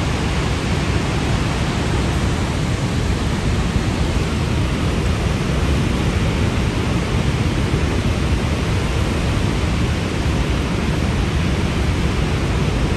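Steady rushing of Niagara Falls, a dense even wash of falling water with no breaks.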